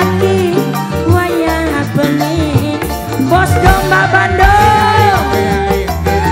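Live tarling-dangdut band music: steady bass and drums under a bending lead melody, with one long held, wavering note in the middle.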